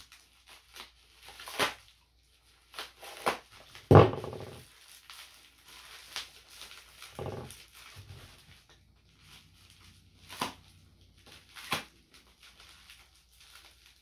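Parcel being unwrapped by hand: scattered clicks and rustles of packaging, with a loud short pitched sound about four seconds in and a shorter one about three seconds later.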